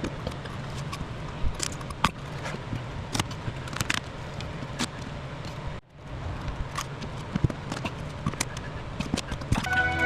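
Irregular light clicks and knocks of metal parts and hand tools being handled, over a steady low hum. The sound drops out briefly a little past halfway.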